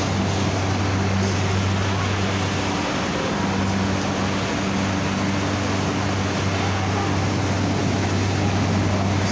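Sugar mill machinery running: a steady low hum over a constant rush of mechanical noise, the hum dipping briefly about three seconds in.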